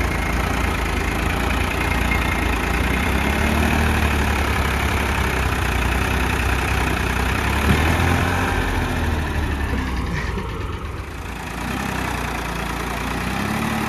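Farmtrac 60 tractor's diesel engine running hard under heavy load while hauling a full trolley through soft sand, with the front wheels lifting. The engine note swells and falls several times and dips briefly about ten seconds in.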